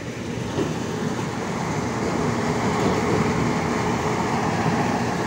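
Tractor-mounted maize harvester running in a standing maize crop: the tractor engine and the harvester's cutting and crushing gear make a steady mechanical noise that grows louder over the first couple of seconds, then holds.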